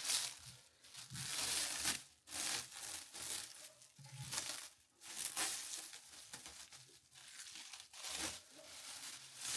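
Packaging and paper from a new smoker being handled and unwrapped: a series of separate rustles and tearing sounds.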